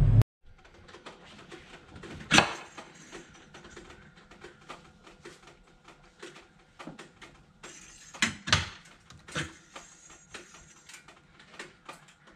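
Scattered light clicks, knocks and rustles of a shop rag and the oil dipstick being handled in a Lamborghini Gallardo's engine bay, with one sharper knock about two seconds in and a few more around eight to nine seconds.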